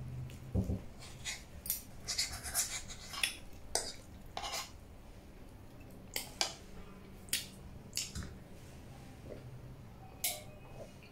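Metal fork and spoon clinking and scraping against ceramic plates while noodles are eaten: about a dozen sharp, irregular clinks, some in quick clusters.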